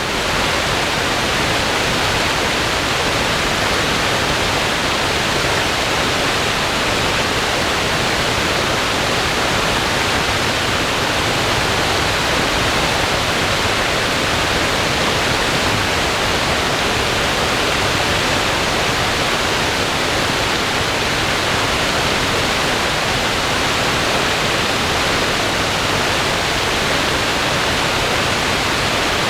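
Swollen creek rushing after days of heavy rain: a steady, loud roar of fast water.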